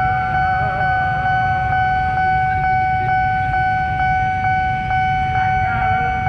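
Railway level-crossing warning alarm sounding a steady electronic tone with a faint tick about twice a second, over a low rumble. Near the end a second tone falls in pitch.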